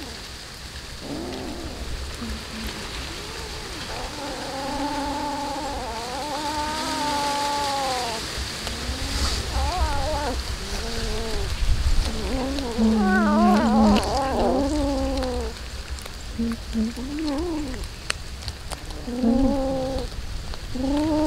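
Cats growling and yowling over raw fish, in long wavering calls that rise and fall in pitch, several stretches of a few seconds each, sometimes two cats at once. Beneath them is a steady crackle of chewing and dry leaves.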